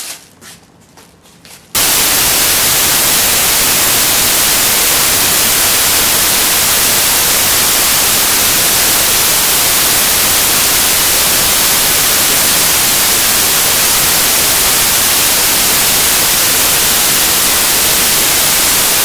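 Loud, steady static hiss, like white noise, cutting in abruptly about two seconds in: a glitch in the recording, not a sound from the room. Before it, faint crinkling of a plastic bag.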